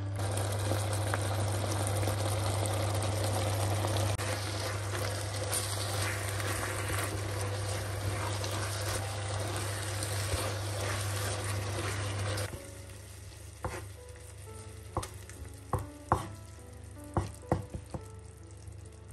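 Stir-fry of chicken, vegetables and garlic sizzling in oil in a hot nonstick pan while being stirred with a wooden spatula. About twelve seconds in the sizzling drops away abruptly, and a run of sharp clicks and knocks follows.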